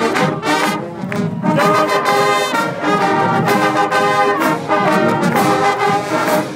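Marching band brass section, trumpets and sousaphones, playing loud chords in short, punchy phrases.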